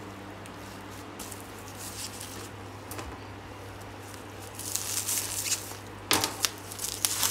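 Bubble wrap around a protein bag crinkling and rustling as it is handled, faint at first, then louder from about four and a half seconds in, with the sharpest burst about six seconds in. A low steady hum runs underneath.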